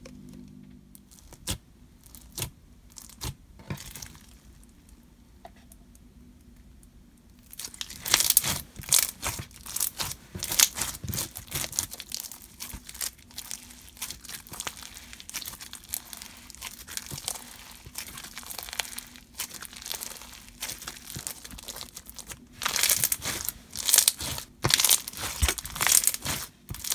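White glue slushie slime packed with hard plastic slushy beads, stretched and squeezed by hand: a dense, irregular crackle of bead crunches and small air-bubble pops, starting about eight seconds in after a few scattered clicks.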